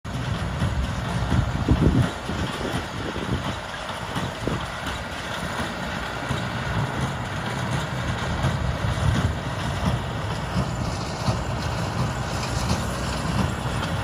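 John Deere 6330 tractor running steadily as it pulls a working New Holland 370 small square baler along a hay windrow, a low rumble of engine and baler machinery. The rumble is loudest about two seconds in.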